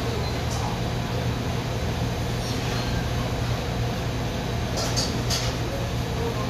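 Steady hum of a commercial kitchen exhaust hood and ventilation fan, with a few light clinks of kitchen utensils or dishes about five seconds in.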